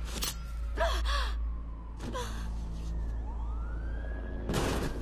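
Film fight soundtrack: short strained gasps at the start, about a second in and again after two seconds, over a steady low drone and a faint tone gliding upward. Near the end comes a loud rushing burst of noise.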